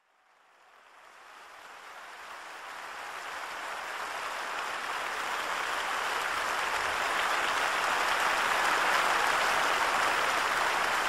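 Concert audience applauding, fading in gradually and growing steadily louder.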